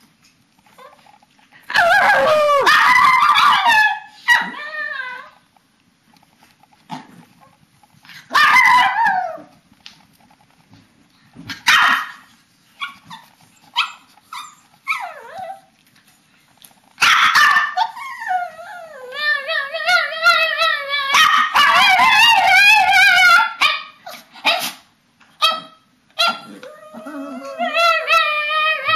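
Papillons and a shih tzu 'talking' to each other: several long, wavering, pitch-bending vocalizations of one to six seconds each, the longest starting a little past the middle, with short sharp barks in between.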